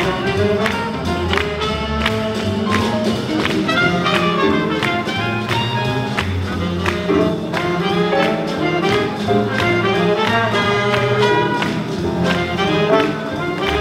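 Live swing jazz band playing an up-tempo tune, trumpets, trombone and saxophone over drums keeping a steady beat.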